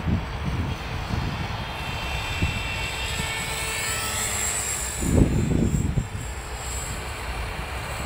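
Electric brushless motor and rotor whine of a CopterX 450 RC helicopter in flight, its pitch rising and then falling around the middle. Wind buffets the microphone in gusts, loudest about five seconds in.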